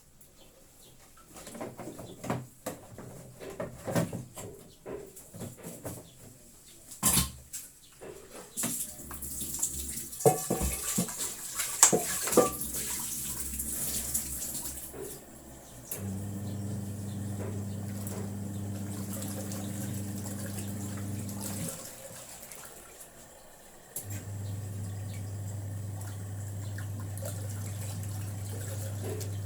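Sharp washing machine's motor running with a steady low hum, stopping for about two seconds past the middle, then starting again, as in a wash cycle that turns the tub one way and then the other. This shows the machine working again after its broken power cable was mended. Before that, water runs into the tub, with a few knocks and clicks at the start.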